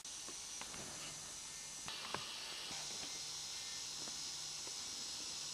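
Quiet room tone: a steady hiss of recording noise with a faint low hum and a few soft clicks.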